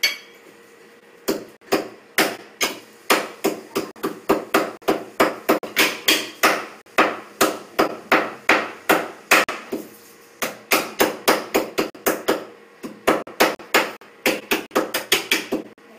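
Wooden pestle pounding cardamom pods in a small steel cup: a steady run of sharp knocks, about two or three a second, with a couple of brief pauses.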